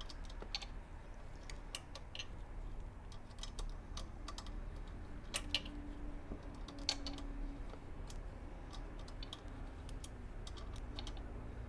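Faint, irregular light clicks and taps, with two slightly louder ones about five and a half and seven seconds in, over a low steady hum.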